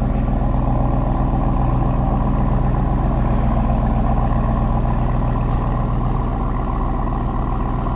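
Ram 1500 TRX's supercharged 6.2-litre V8 idling steadily through a newly fitted AWE 0FG exhaust.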